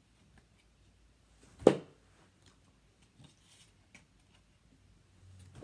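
Playing cards from a Falcon deck thrown at a target board: a sharp smack about a second and a half in and another at the very end, with faint rustles and clicks of cards being handled from the deck in between.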